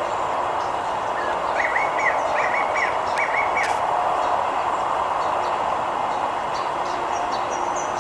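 Small birds chirping over a steady background noise: a quick series of repeated chirps about two seconds in, then faint high calls near the end.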